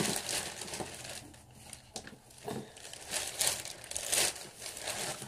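Crinkling and rustling in short, uneven bursts as something is handled and pulled out.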